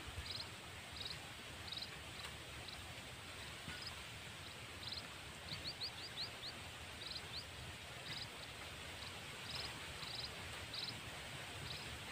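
Outdoor background with a small animal's short high chirps repeating about one to two a second, and a quick run of rising notes about six seconds in.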